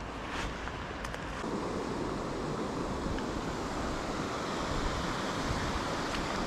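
Stream water rushing steadily over stones, a little louder from about a second and a half in, with some wind rumble on the microphone.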